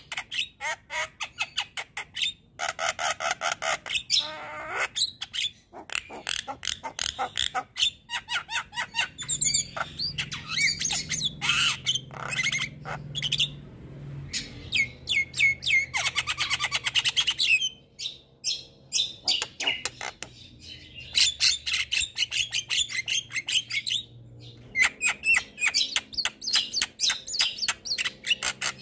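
Javan myna in full song: a long, rapid run of harsh squawks, chattering rattles and whistled notes, delivered in quick bursts with short pauses between them.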